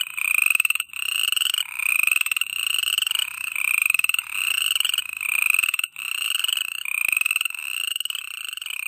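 A frog chorus heard close up: one pulsed, trilled call after another, each under a second long and rising slightly in pitch, with barely a gap between them.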